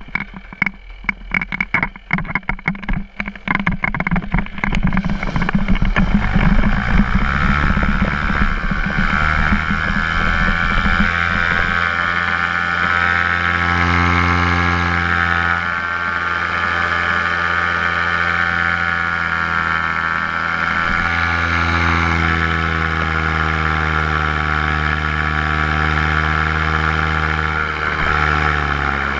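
Paramotor engine and propeller running at a choppy, pulsing low throttle, then opened up about five seconds in to a steady loud drone that shifts in pitch a few times as power is worked through the wing inflation and launch run.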